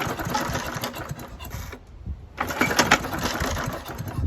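1972 Hayterette rotary mower's engine being pull-started twice by its recoil starter, turning over with a whirring rattle for about a second and a half each time without catching: a worn engine that is hard to start.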